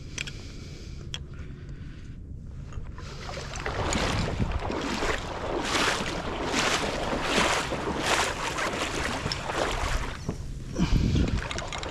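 Water sloshing and splashing in repeated surges as someone wades through shallow flooded marsh, growing louder about four seconds in, with wind on the microphone and a strong gust near the end.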